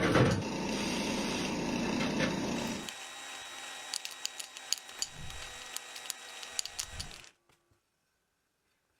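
Workshop tool and handling sounds: a rasping noise for about three seconds, then a run of light clicks and a few dull knocks, cutting off suddenly about seven seconds in.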